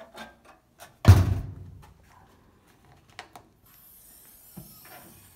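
The top lid of a Husky steel tool chest shutting once with a heavy thud about a second in, followed by a few faint clicks and knocks.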